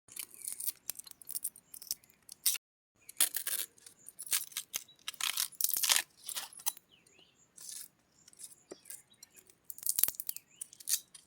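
Husks of fresh bamboo shoots being torn and peeled off by hand: irregular crisp tearing and crackling strokes, with a brief pause about two and a half seconds in.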